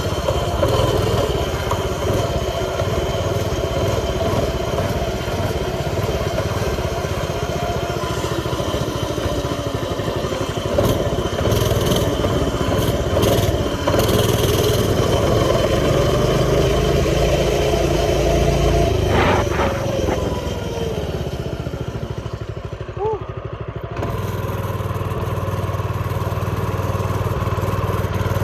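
Small 49cc two-stroke pocket bike engine running under way, its pitch rising and falling as the throttle opens and closes. It eases off briefly about 22 seconds in, then picks up again.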